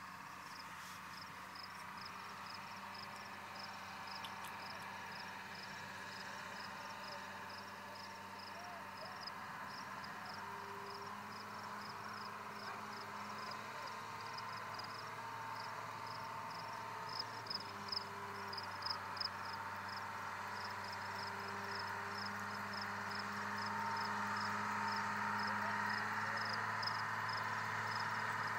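A vehicle engine growing louder as the vehicle approaches along a dirt track, over steady insect chirping at about two chirps a second.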